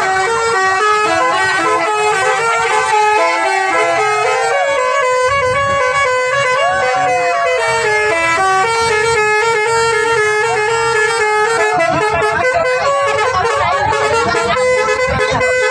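Bus 'telolet' multi-tone air horn playing a melody of held notes that change pitch in steps.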